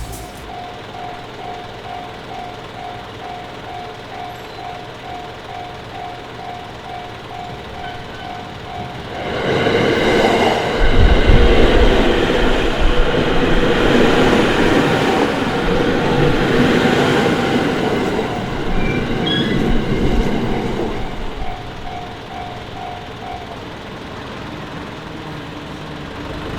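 Japanese railway level-crossing warning bell ringing in a steady repeated ding, about two and a half strikes a second. About nine seconds in, a JR Kawagoe Line train passes loudly over the crossing for about twelve seconds. The bell stops near the end.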